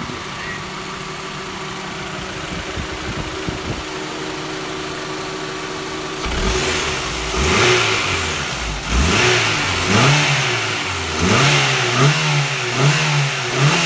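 Honda H22A 2.2-litre DOHC VTEC inline-four idling steadily and quietly, then from about six seconds in revved repeatedly in short blips, the pitch rising and falling with each one.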